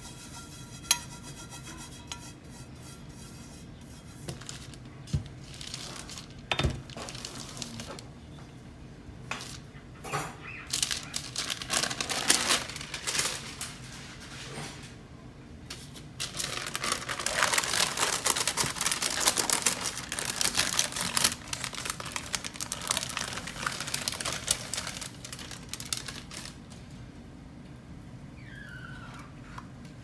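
Wax paper rustling and crinkling as a rolled pie crust is handled and the paper is peeled from the dough, densest in the second half. A few light knocks of a steel pie plate on the counter come early.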